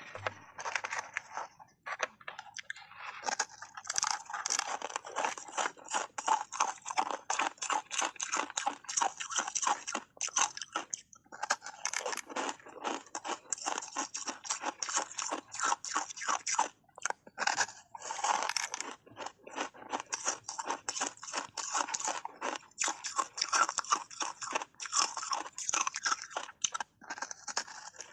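Close-up crunching and chewing of hard frozen ice bars: rapid, dense cracks as the ice is bitten and ground between the teeth, with a few short pauses between mouthfuls.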